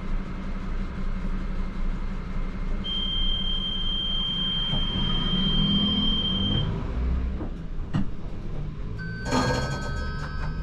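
ČKD Tatra T6A5 tram running on the rails, heard from the driver's cab: a steady low rumble of wheels and running gear, with a steady high whine for a few seconds in the middle. A brief high-pitched squeal comes near the end.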